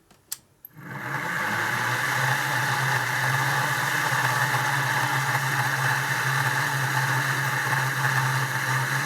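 Dehumidifier's 80 mm cooling fan switched on with a click, spinning up over about a second and then running steadily with a low hum and a rough whirring noise: the abnormal noise of a worn motor bearing.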